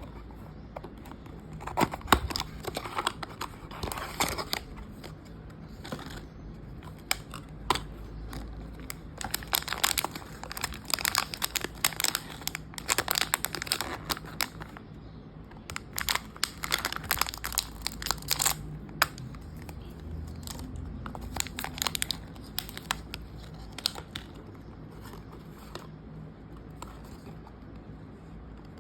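Packaging crinkling and tearing by hand as a blind box is opened, in spells of sharp crackles that die down near the end.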